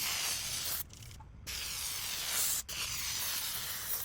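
WD-40 aerosol can spraying into the seams of laminate flooring in three hissing bursts, the last two separated by only a brief break. The lubricant is being applied to stop the laminate squeaking.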